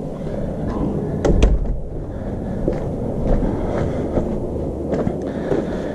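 A door and footsteps: a heavy thump about a second in, then scattered light knocks and footfalls over a steady background rush.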